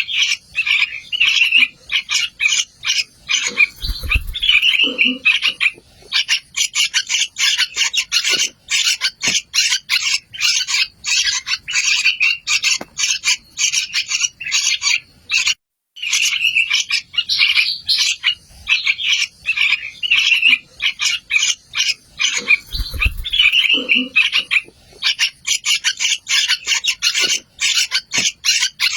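Young yellow-vented bulbuls (trucukan) chirping in a dense, rapid, continuous run of high calls, with a brief break about halfway through.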